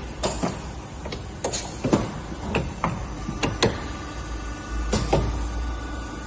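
Wire-welding production line machinery running: irregular sharp metallic clanks and knocks over a steady low hum, with a faint steady high tone coming in about halfway.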